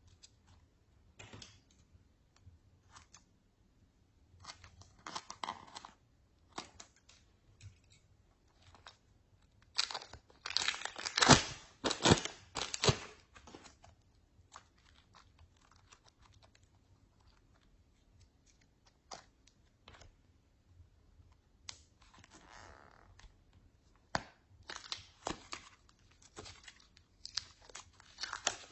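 Slime being mixed and squeezed by hand, giving sticky crackling, popping and crinkling sounds in irregular bursts, densest and loudest about ten to thirteen seconds in.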